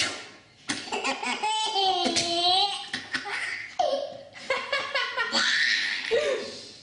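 Baby laughing in repeated high, squealing peals.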